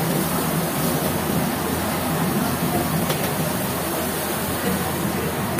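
Steady roar from a commercial wok station's gas burner, with beef sizzling and steaming in the wok as it is stir-fried.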